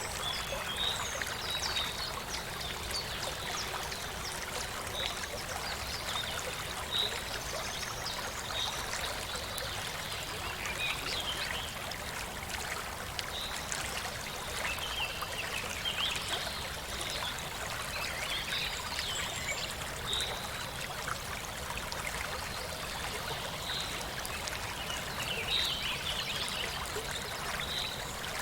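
Mountain stream flowing and trickling steadily over rocks, with small birds chirping in short calls over the water throughout.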